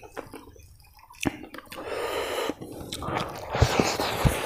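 Close-up mouth sounds of a person eating rice and pork fry: wet chewing and lip-smacking, with scattered sharp wet clicks, louder in the second half.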